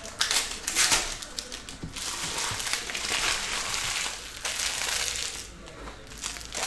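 Crinkling and rustling as trading cards and their packaging are handled, lasting about five and a half seconds and easing off near the end.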